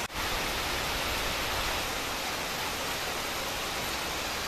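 Steady rain falling, an even hiss without any let-up.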